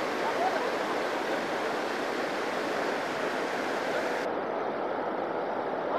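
Steady rush of river water pouring over a low weir and tumbling among rocks.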